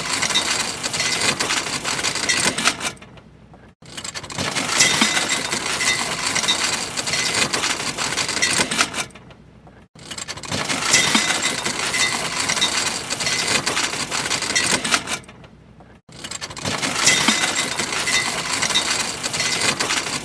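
Boat anchor chain rattling out as the anchor is dropped, heard close to the chain. It comes in repeated runs of about five seconds, each fading out before the next starts, about every six seconds.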